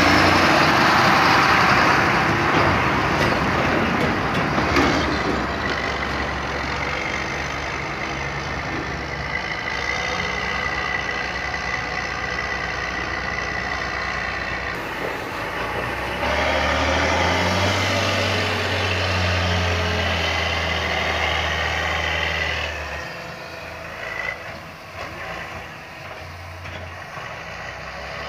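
John Deere diesel tractor engines running steadily, among them a front-loader tractor working a pile of chopped maize. The sound changes abruptly about sixteen seconds in and again about twenty-three seconds in, and is quieter near the end.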